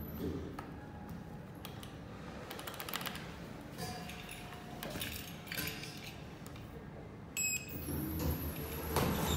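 Schindler D series lift car travelling between floors with a low steady hum and a few light clicks. A short tone sounds about four seconds in, and a brief high electronic beep near the end as the car arrives.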